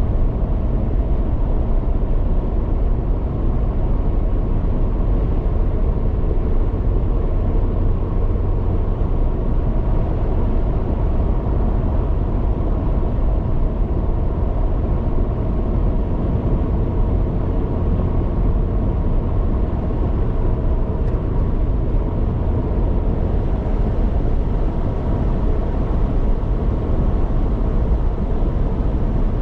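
Steady road noise from a car cruising at highway speed: tyre and wind rush over a low rumble, unchanging throughout.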